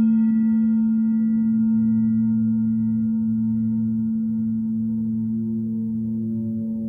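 Background music: a singing bowl's long ringing tone, slowly fading and wavering, with a fresh ringing tone coming in near the end.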